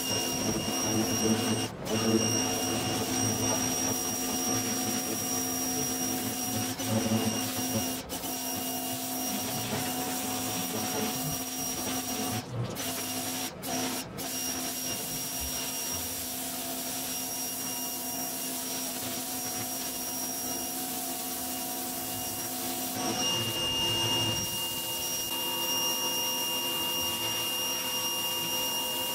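Ryobi 1600 PSI electric pressure washer running, its motor and pump giving a steady whine over the hiss of the water jet on concrete. The whine shifts in pitch a little past two-thirds of the way through.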